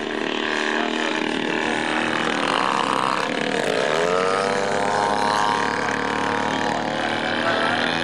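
Large RC aerobatic biplane's engine and propeller running in flight. About four seconds in, the engine note sweeps sharply upward in pitch and then holds.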